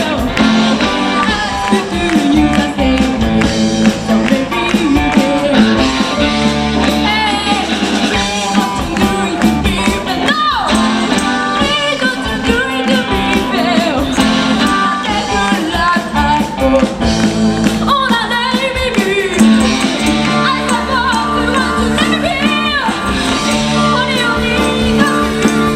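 A live band playing a rock-leaning song with guitar, drums and a singing voice.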